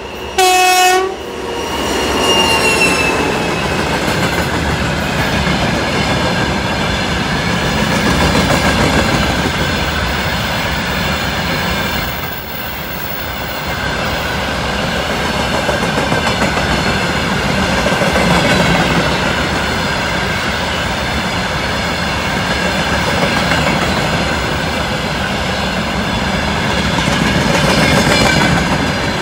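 A 2TE116 diesel freight locomotive gives one short horn blast about half a second in, the loudest sound here, a greeting toot from its crew. Then the locomotive and a long train of covered hopper wagons run past with steady wheel-on-rail noise.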